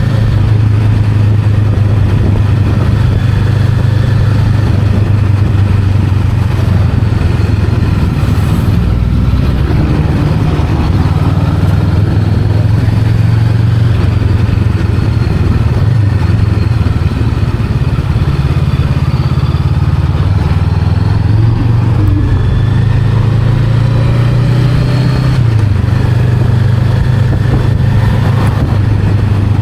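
Honda Rebel 500's parallel-twin engine running under way on the road, its note holding steady with a few shifts in pitch as the throttle changes.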